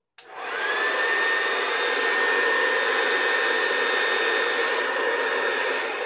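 Revlon handheld hair dryer switched on at high speed, blowing into a plastic water bottle fitted over its nozzle: a rush of air with a motor whine that rises as it spins up in the first second, then runs steadily.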